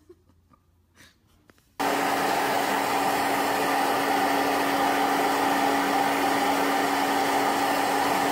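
Hand-held hair dryer running steadily: a loud, even rush of air with a constant hum in it, starting abruptly about two seconds in.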